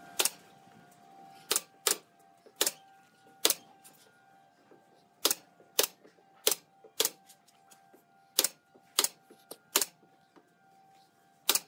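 Pneumatic nail gun firing nails into pallet-wood window trim: about a dozen sharp shots, irregularly spaced, some in quick pairs.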